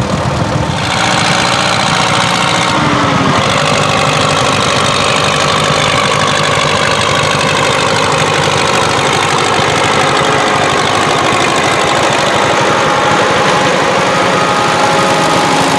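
A 1953 Steyr 280 tractor's four-cylinder diesel engine running while the tractor pulls a plough through the field. The engine picks up about a second in, then runs steady and loud.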